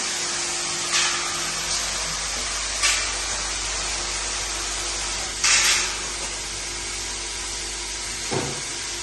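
Automatic bagging machine with vibratory bowl feeders running: a steady hum and hiss, broken by short, sharp hissing bursts about every two seconds and a knock near the end.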